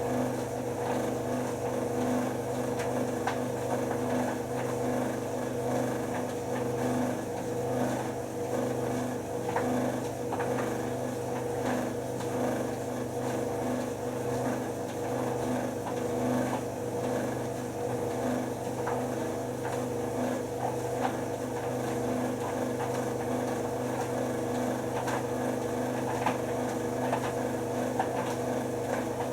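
White Knight C44A7W vented tumble dryer running: a steady motor and fan hum with a few faint knocks.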